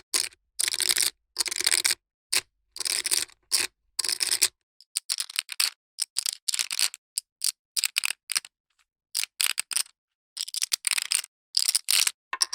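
Poker chips clicking and clattering against one another in a series of separate short bursts. The bursts are longer in the first few seconds, then come as shorter, quicker clusters of clicks.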